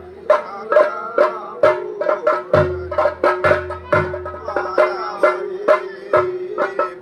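Theyyam ritual drumming: chenda drums struck in quick, sharp, uneven strokes, with a wavering melody and a steady held tone running above the beats.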